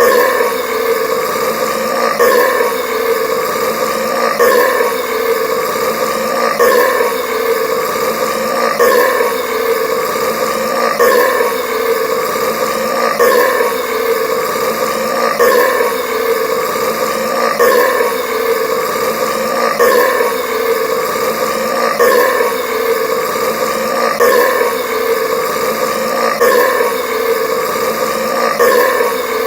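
Long burps brought on by carbonated Sprite Cranberry soda, one after another at an even pace of about one every two seconds.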